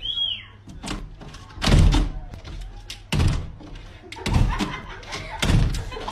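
A glass door being banged shut against its frame again and again, four heavy thuds about a second apart.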